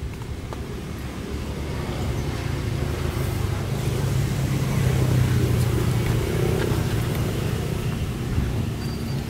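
A motor vehicle's engine rumbling, growing louder to a peak about halfway through and then easing off a little.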